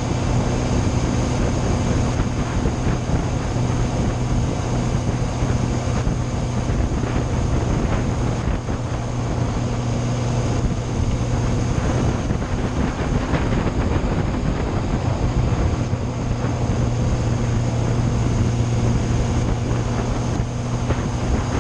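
Yamaha Fazer motorcycle engine running at a steady, unchanging pitch while cruising, with wind rushing over the microphone.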